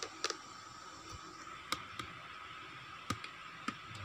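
A few scattered light clicks and taps of thin strips of steel saw blade being handled and marked, over a faint steady high-pitched hum.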